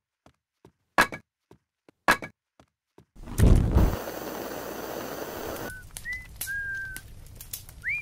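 Two sharp thunks, then a loud whoosh of a fire flaring up that settles into a steady rush of burning. About six seconds in, a person starts whistling in short held notes.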